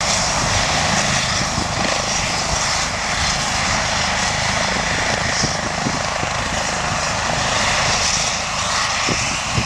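Air ambulance helicopter, a twin-turbine Eurocopter EC135, running steadily on the ground with its rotor turning before take-off: an even turbine rush with an uneven low rumble beneath it.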